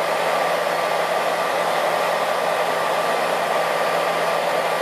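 Hair dryer blowing steadily on its hot, low-speed setting: a continuous rush of air with a faint steady motor hum under it.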